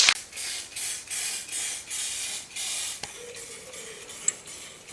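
Aerosol can of graphene primer spraying in a quick series of short hissing bursts, coating bare welded steel; the bursts grow fainter after about three seconds.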